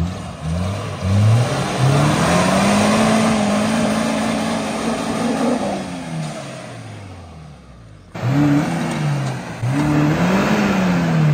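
Modified Maruti Gypsy's engine revving hard: the pitch climbs, holds high for a few seconds, then falls away. About eight seconds in the sound cuts off suddenly, and the engine revs up twice more.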